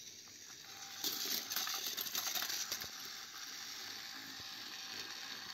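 Battery-powered plastic toy train engines running: small electric motors and plastic gearboxes whirring with a rattling, clicking grind, plus clicks of plastic toys being handled. The grinding grows louder about a second in, then holds steady.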